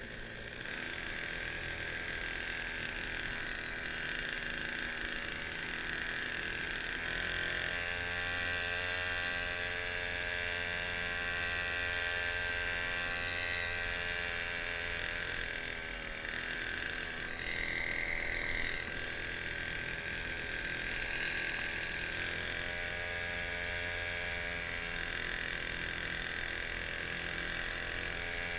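Small motor on a homemade motorized kayak running steadily with a whine, its pitch shifting slightly a few times.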